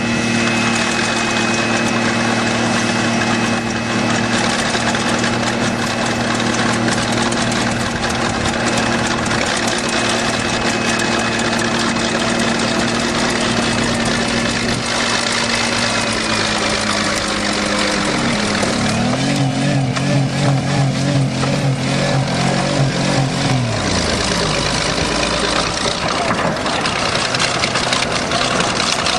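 Engines running loud and steady: a Buick's 3.8-litre V6, held at high revs by a wedged throttle, and a bulldozer. From about two-thirds of the way in there is crunching and clattering as the car is crushed, while the engine note drops, wavers for several seconds and then falls away.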